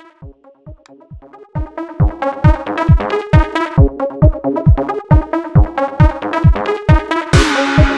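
Electronic dance music with a steady kick drum at about two beats a second and synthesizer chords. It gets louder about a second and a half in, and a hissing swell comes in near the end.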